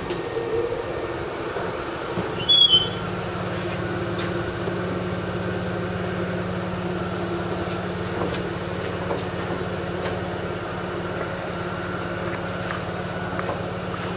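Steady electric motor hum that sets in about two seconds in and runs on, with a brief high squeak just after it starts.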